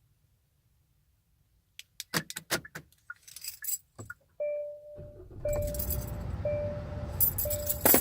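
Keys jangling at a Hyundai's ignition, then the dashboard warning chime dinging about once a second. From about five seconds in a low steady rumble joins the chime, and the keys jingle loudly again near the end.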